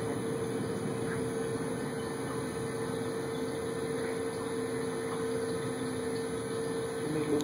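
Large Vantage heavy-duty engine lathe running under power, its drive motor and headstock gearing giving a steady hum with a constant whine.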